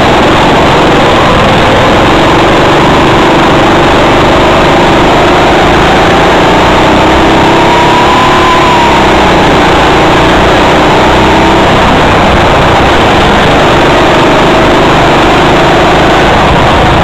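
Go-kart engines running on the track, heard loud and distorted, a steady drone whose pitch climbs to about halfway through and then drops again as the karts speed up and slow for the corners.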